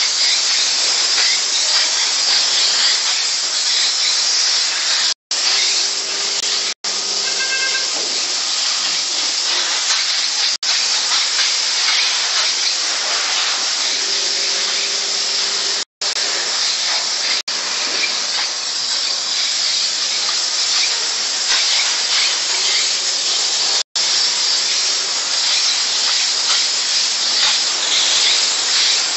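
Steam car washer's nozzle spraying steam with a steady loud hiss, briefly cutting out a few times for a split second.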